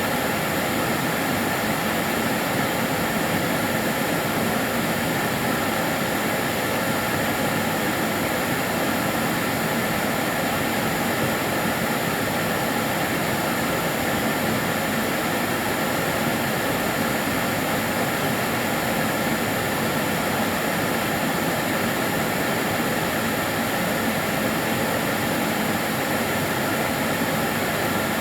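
Karcher DS 6 Premium water-filter vacuum cleaner running steadily, a constant whooshing motor-and-airflow noise with faint steady whine tones and no change in pitch.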